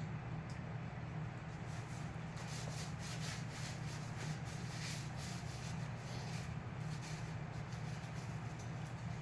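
A run of short rubbing or scraping strokes, thickest around the middle, over a steady low hum.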